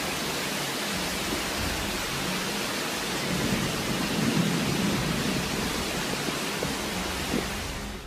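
Rushing floodwater and heavy rain, a steady noisy roar, with the water churned and splashing as a car ploughs through the flooded street; it swells louder around the middle.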